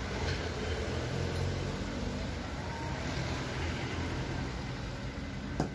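Steady low mechanical hum with a haze of noise, broken near the end by a single sharp pop as a gas torch is lit.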